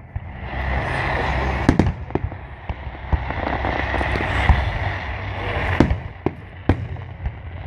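Aerial fireworks display: a string of sharp bangs from shells bursting overhead, irregularly spaced, over a steady hiss that fades out after about five seconds.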